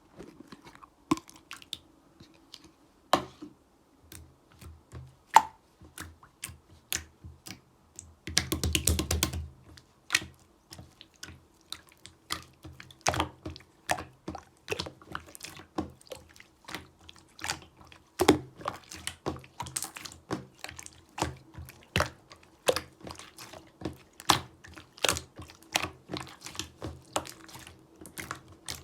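Clear slime being squeezed, poked and folded by hand, giving an irregular run of sticky clicks and air-bubble pops, with a longer, denser squelch about eight seconds in.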